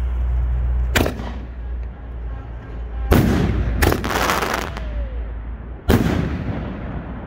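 Consumer aerial firework shells bursting overhead: three sharp bangs, about one, three and six seconds in. The middle bang is followed by about a second and a half of crackling from the glittering stars.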